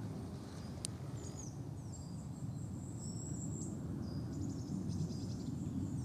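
Steady low rumbling noise with faint high chirps, short gliding calls and quick trills from small birds, and one sharp click about a second in.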